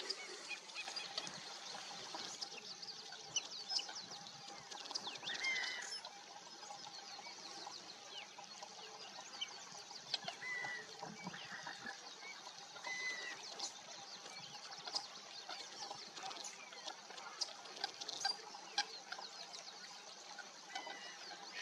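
Large flock of white-winged coots calling: a dense chatter of many overlapping short calls, with a few louder calls standing out now and then.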